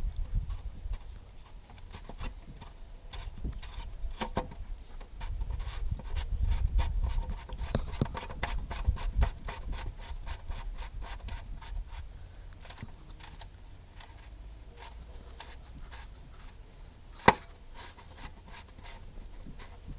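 Hand tools being worked, a string of clicks and light knocks, with one sharp, much louder knock about three-quarters of the way through.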